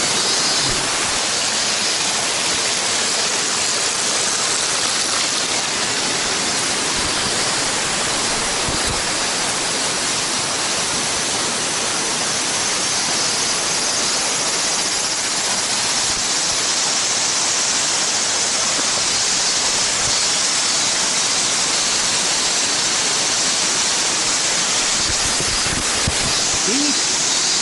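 Waterfall pouring steadily, a continuous even rush of falling water.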